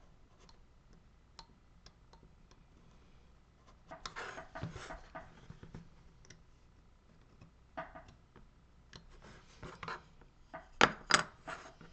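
A hand carving tool scraping and shaving a small piece of wood in short strokes, with a flurry of scrapes about four seconds in, more around nine seconds, and two sharp loud scrapes near the end.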